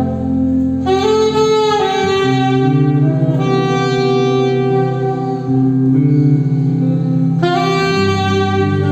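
A band playing music: a melody of long held notes, changing pitch every second or two, over a steady bass line.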